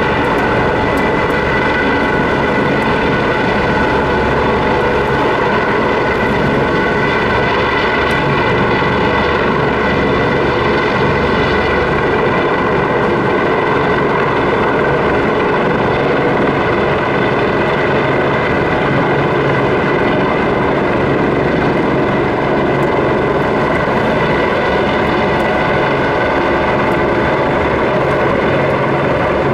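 Airbus AS365 Dauphin twin-turbine helicopter hovering with a load slung beneath it: a steady whine of several high tones over a constant low rotor rumble.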